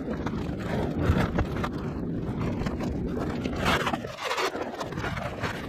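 Scrapes and knocks of a hard-shell suitcase being handled onto an airport check-in baggage belt, several in the first two seconds, over phone-microphone handling noise and the din of the check-in hall.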